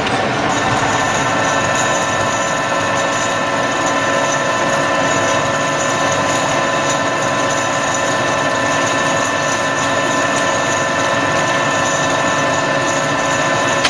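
Radial arm drilling machine running steadily, its motor and gearing giving several steady whining tones over a dense mechanical noise.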